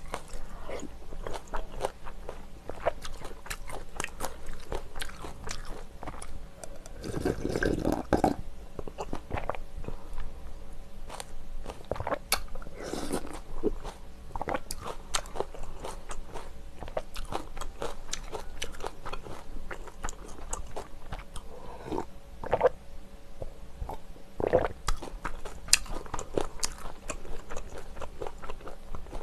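Close-miked eating sounds: chewing, with many small crunches and wet mouth clicks. There is a louder, fuller stretch about seven seconds in.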